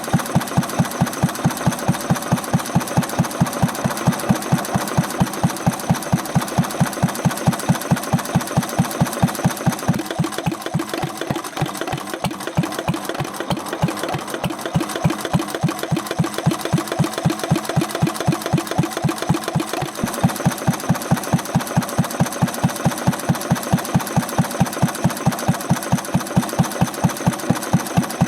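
Old single-cylinder stationary farm engine running steadily with an even beat of about three to four strokes a second, on a test run after its connecting-rod big-end shims were adjusted to cure a knock. The beats soften somewhat in the middle and come back firmer about two-thirds of the way through.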